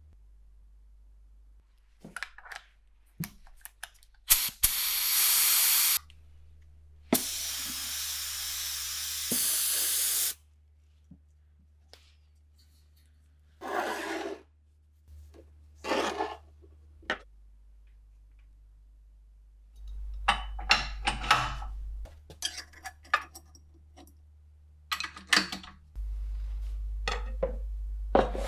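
Gravity-feed paint spray gun spraying in two hissing bursts of about two and three seconds, a few seconds in. After them come short scrapes, knocks and clicks of metal parts being handled on a table.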